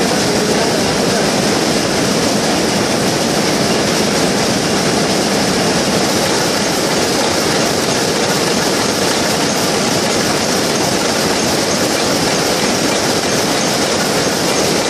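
Shuttleless towel looms weaving at full speed: a loud, dense, unbroken mechanical clatter with a steady high hiss over it.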